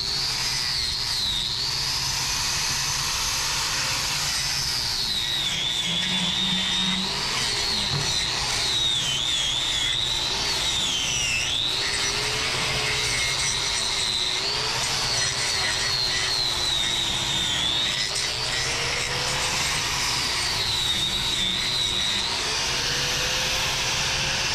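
Electric angle grinder fitted with a power rasp wheel, running continuously while it grinds the horn of a cow's hoof claw. Its whine dips and recovers in pitch as the wheel is pressed in and eased off. It is roughening the hoof surface so the glue for a wood block will stick.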